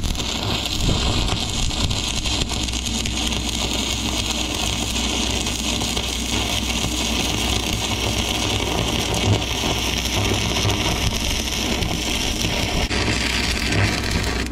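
Stick welder arc crackling and sizzling steadily as a welding rod burns along a run on a bucket, over a low steady hum; the arc stops near the end.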